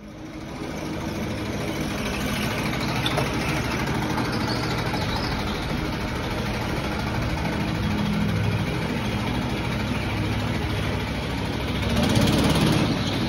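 Small go-kart engines running steadily as karts circle the track, with one kart passing close by near the end, where the sound gets louder.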